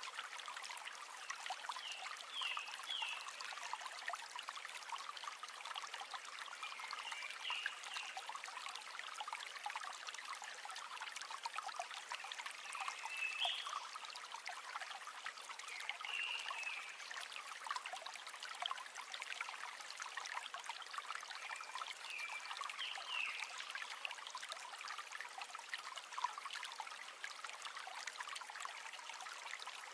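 River water flowing and trickling, an even rushing hiss, with short high chirps every few seconds.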